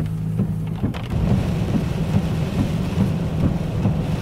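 Heavy rain hitting a moving car, heard from inside the cabin over the steady low hum of the car driving. The rain noise grows louder about a second in, with small ticks of drops striking.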